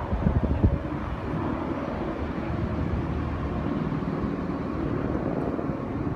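Steady rumble of road traffic in an open city street, with brief buffeting on the microphone in the first second.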